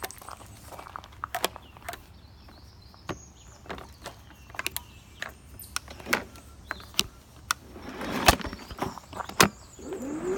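Irregular clicks and knocks of someone working the controls of a battery-powered lawn mower, pressing its start button and moving the bar handle without getting the mower to run. The two loudest knocks come near the end.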